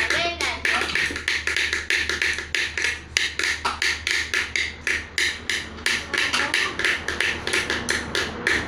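Rapid, steady lion-dance percussion beat, about five or six sharp strikes a second.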